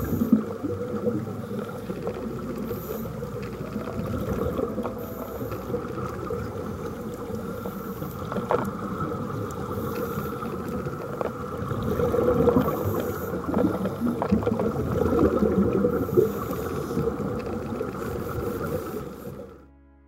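Muffled underwater sound of scuba divers breathing through their regulators, with their exhaled bubbles rushing and bursting in swells. It fades out near the end.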